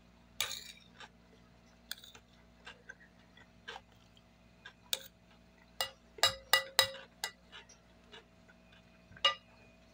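Eating sounds: a metal spoon clinking and scraping on a ceramic plate, with chewing and mouth clicks. The clicks come scattered, with a quick run of four or five about six to seven seconds in.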